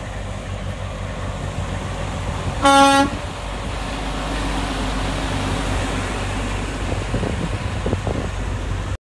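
A passing tractor-trailer sounds one short horn toot, about half a second long, a little under three seconds in. Its engine and tyres go by afterwards as a steady low rumble that swells and fades. The audio cuts to silence at the very end.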